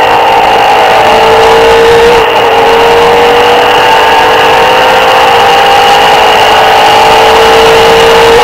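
Porsche 993 RS air-cooled flat-six under full throttle, heard loud from inside the cabin. Its pitch climbs through a gear, drops sharply at an upshift about two seconds in, then climbs steadily again through the next gear.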